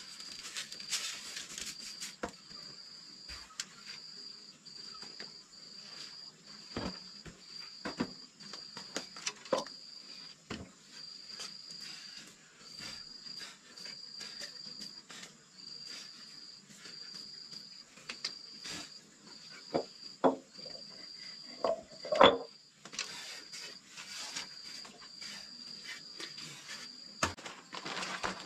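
Insects trilling on a high note in steady pulses about a second long, with scattered knocks and clicks over it, the loudest a sharp knock about 22 seconds in.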